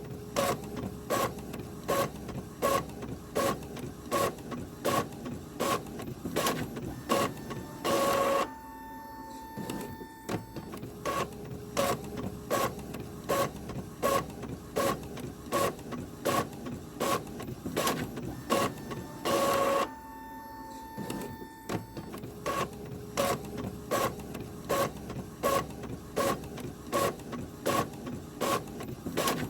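Printer running through pages: quick mechanical clicks about twice a second, broken about every eleven seconds by a longer, louder stroke and a short pause with a steady hum before the clicking resumes.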